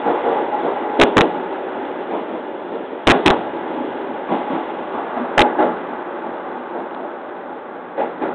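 209 series electric train's wheels clacking over rail joints, heard from the driver's cab over the steady running noise: each joint gives a quick double click as a bogie's two axles pass. The pairs come further apart toward the end as the train slows.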